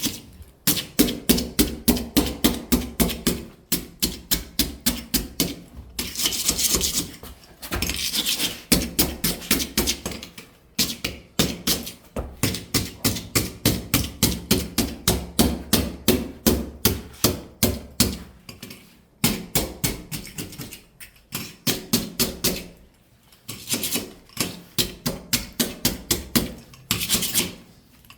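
Rapid hammer blows on wood flooring, several a second, in runs of a few seconds with short pauses between. Near the middle and near the end there are brief stretches of scraping.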